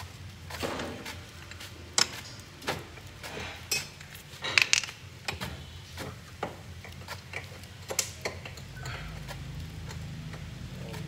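Irregular metallic clicks and clinks of hand tools working on a washing machine's underside motor and drive parts, with a quick run of clinks about four and a half seconds in. A low steady hum runs underneath.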